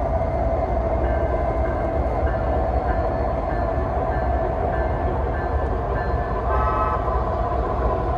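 O-gauge three-rail model train running on the layout: a steady rumble of metal wheels on the track, with the locomotive's sound system ringing a bell about twice a second and a short whistle blast about six and a half seconds in.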